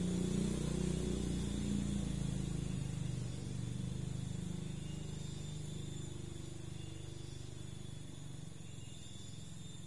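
A low, steady rumble that slowly fades.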